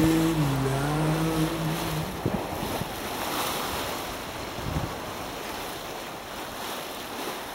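Sea waves and wind rushing over the microphone as a steady, slowly fading noise. A held note of music rings for the first two seconds and then stops.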